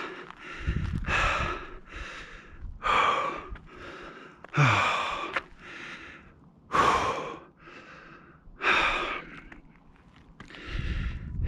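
A hiker breathing hard close to the microphone, one loud breath about every second, out of breath after a steep climb to the top. Brief low rumbles near the start and the end.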